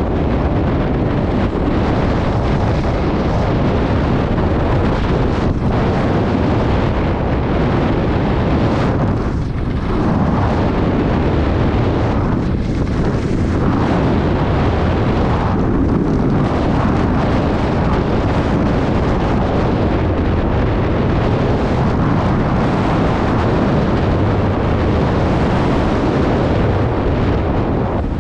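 Wind buffeting a helmet-mounted action camera's microphone at skiing speed: a loud, steady rumbling roar. Mixed in is the hiss and scrape of skis on groomed snow.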